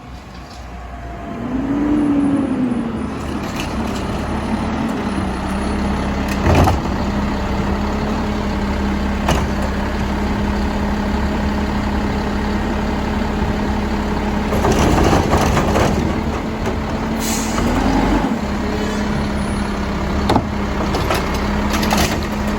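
Mack LEU garbage truck with a Labrie side-loader body running at a steady pitch. The engine note swells up and settles about two seconds in, then holds steady. Scattered knocks and a few short, sharp hisses sound over it.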